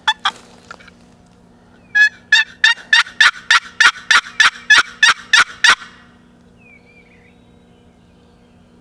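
Turkey yelping: a run of about a dozen loud, evenly spaced raspy notes, a little over three a second, lasting about four seconds, with two short sharp notes just before.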